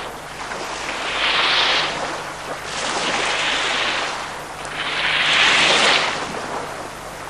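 Surf washing onto a sandy beach, the hiss of each wave swelling and fading about every two seconds, three times, the last the loudest.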